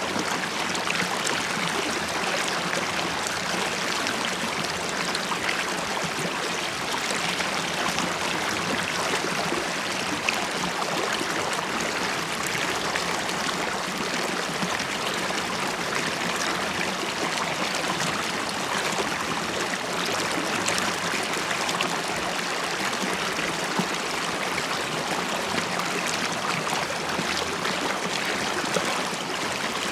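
River water flowing and bubbling in a steady, even rush with fine gurgles.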